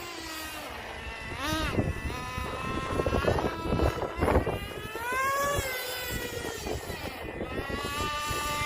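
Nitro two-stroke engine of a Traxxas T-Maxx RC truck running, its pitch rising and falling again and again as the throttle is blipped, with a rougher, choppier stretch in the middle.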